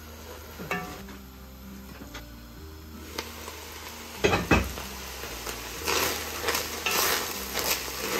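Minced beef sizzling in an enamelled cast-iron pot. There is a knock about four seconds in, and from about six seconds on a wooden spoon stirs and scrapes the mince in repeated strokes.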